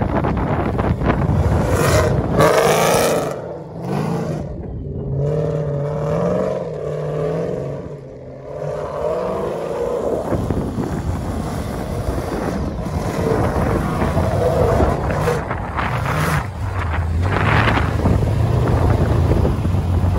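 Rally-raid pickup's race engine revving as it drives over sand dunes, its pitch rising and falling repeatedly, with wind buffeting the microphone. Near the end the engine settles into a steady low idle close by.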